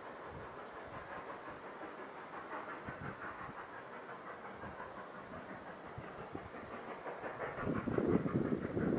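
Distant narrow-gauge steam locomotives working, heard as a steady hiss. Wind gusts on the microphone grow louder near the end.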